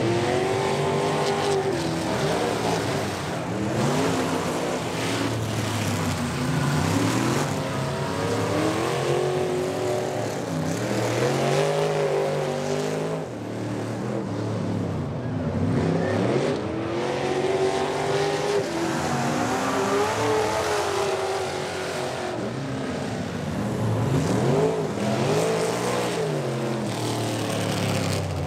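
Dirt-track race trucks' engines accelerating and lifting as they lap the track, the engine pitch rising and falling again and again, every few seconds.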